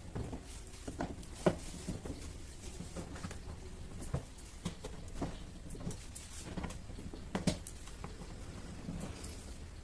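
A Phillips screwdriver undoing screws and the back cover of a twin-tub washing machine being worked loose: scattered small clicks, scrapes and knocks, with sharper knocks about a second and a half in and again past seven seconds.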